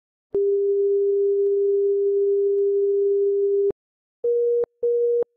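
Telephone ringing sound effect made of plain electronic tones: one steady tone lasting about three seconds, then two short beeps a little higher in pitch.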